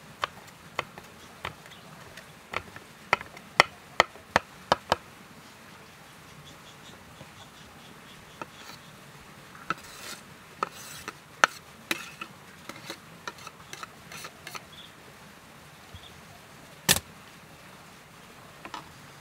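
Large kitchen knife chopping green chillies on a wooden cutting board: a run of sharp taps in the first five seconds, then the blade scraping the chopped chilli off the board into a bowl. A single loud knock comes near the end.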